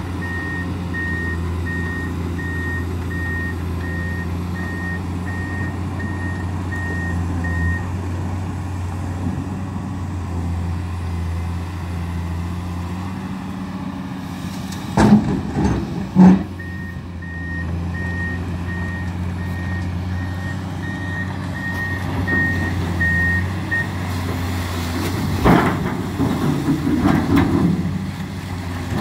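Amphibious excavator with a Komatsu PC200 upper: its diesel engine runs steadily while the travel alarm beeps about twice a second, stopping for a while through the middle before starting again. Two loud knocks come near the middle, and near the end a sharp knock is followed by splashing and clatter as the long-reach bucket arm is driven down into the water.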